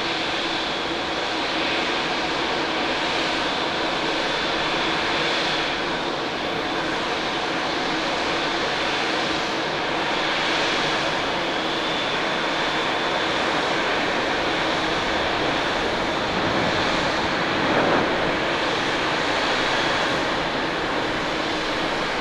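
Lufthansa Airbus A350-900's Rolls-Royce Trent XWB jet engines landing and rolling out: a steady jet roar with a thin high whine. It swells briefly near the end as the thrust reversers open to slow the aircraft.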